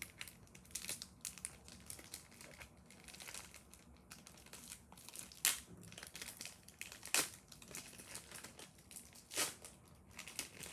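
Crinkling of a foil booster-pack wrapper being handled, with sharper crackles about five and a half, seven and nine and a half seconds in.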